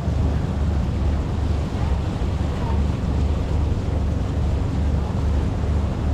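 Wind buffeting the microphone in an uneven low rumble, over the steady rush of water from a river cruise boat under way.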